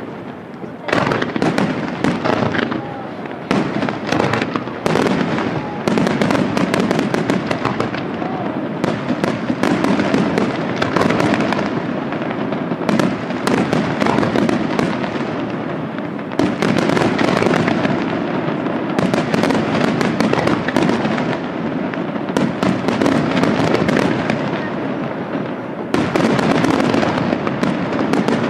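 Aerial fireworks display: shells launching and bursting in rapid, overlapping succession, a dense, continuous barrage of sharp bangs.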